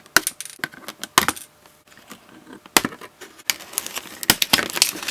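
Plastic and cardboard toy packaging being handled as a doll is taken out of its box: scattered sharp clicks and crinkles, coming thicker and faster in the second half.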